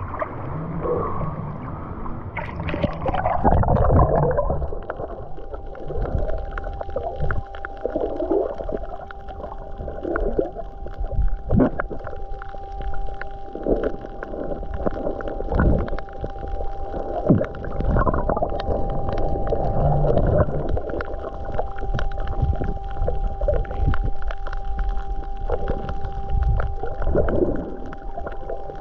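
Underwater sound on a night dive: water gurgling and bubbling around the camera, with scattered clicks. A steady hum sets in about five seconds in.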